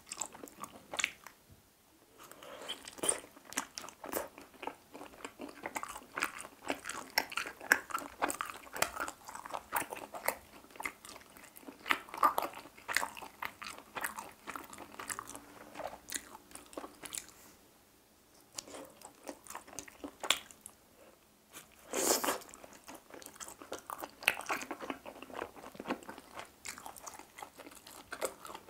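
Close-miked chewing and biting of grilled chicken hearts: dense, irregular mouth clicks, with brief lulls about two seconds in and around eighteen seconds, and one louder sound about twenty-two seconds in.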